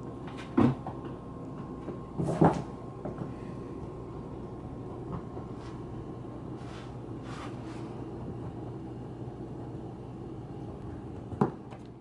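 Steady low hum with a few sharp knocks: one under a second in, a louder cluster about two and a half seconds in, and another near the end.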